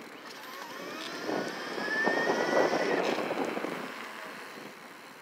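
Bafang M600 mid-drive e-bike motor whining under power, rising in pitch as the bike accelerates and cutting off sharply about three seconds in. Wind and road noise swell with the speed and then fade.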